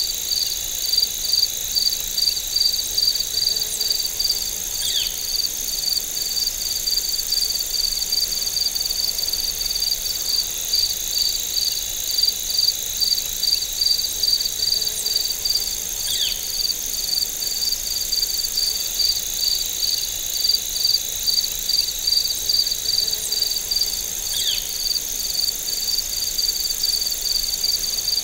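Chorus of crickets and other insects: a steady pulsing chirp, about three pulses a second, over a continuous higher trill. A short falling call comes through three times.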